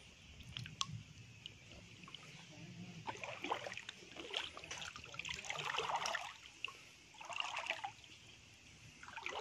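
Shallow stream water trickling, stirred into splashing in several short bursts, with scattered light clicks.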